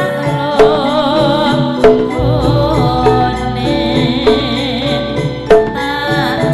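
Javanese gamelan music for tayub: a woman sings with a wavering voice over metallophones ringing out steady notes and struck drum beats. A deep low note enters about two seconds in.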